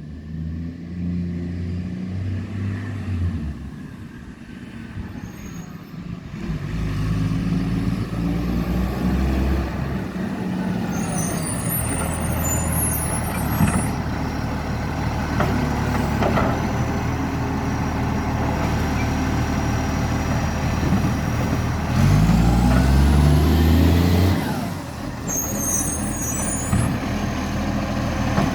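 Garbage truck's diesel engine revving in several surges, its note rough from a very bad exhaust leak, with two short air-brake hisses, one about eleven seconds in and one near the end.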